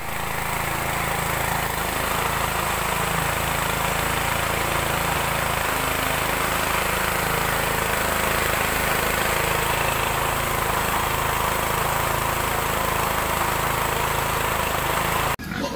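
An engine running steadily under the hiss of a high-pressure hose spray, cutting off suddenly near the end.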